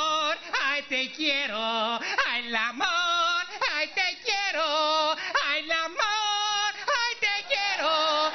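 A man singing in a mock-mariachi style, a run of long, high held notes with heavy vibrato, the last one held about two seconds.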